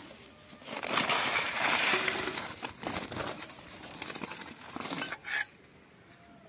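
Aluminium cooking pot and lid clinking and clattering. About a second in there is a loud rush of noise lasting around two and a half seconds, followed by a few sharp metallic clicks.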